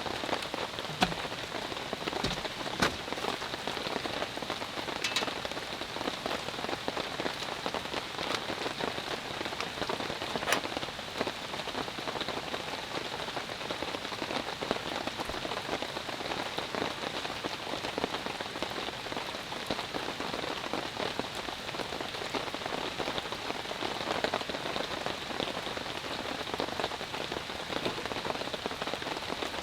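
Steady rain falling on a surface, with a few sharper drop hits standing out, about a second in, near three seconds and around ten seconds.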